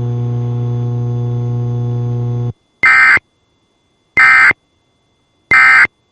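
A steady electrical hum on the weather radio broadcast cuts off after about two and a half seconds. Then come three short, identical data-tone bursts about 1.4 seconds apart. These are the EAS/SAME end-of-message code, marking the end of a severe thunderstorm warning.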